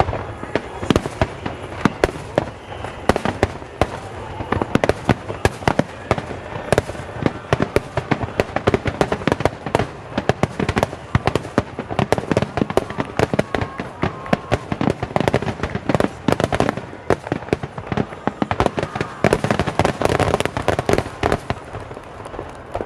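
Fireworks display: aerial shells bursting in a rapid, unbroken barrage of bangs, many a second.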